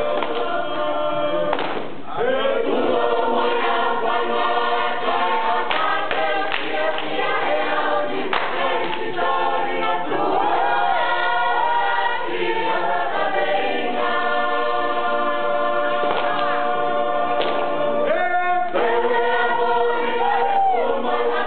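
Tongan church choir singing a song together.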